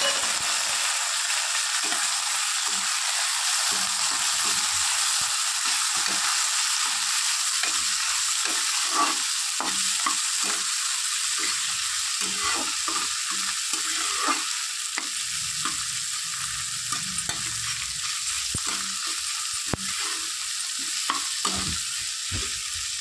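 Chopped tomatoes frying in hot oil with onion, ginger and garlic in a kadai: a steady sizzle, with a spatula stirring and scraping against the pan in frequent short strokes. The sizzle eases a little about halfway through.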